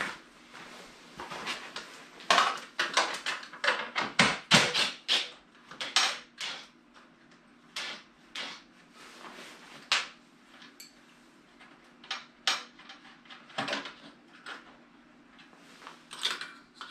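Irregular clicks, knocks and clatter of hand work at a snowmobile's rear bumper: parts and tools being handled and tapped, busiest in the first few seconds.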